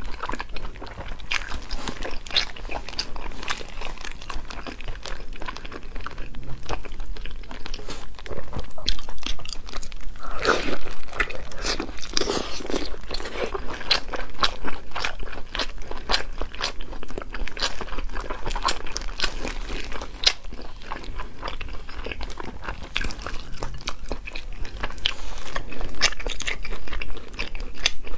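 Biting and chewing red-braised pork belly: a steady run of short mouth clicks and smacks, louder and fuller for a few seconds about ten seconds in.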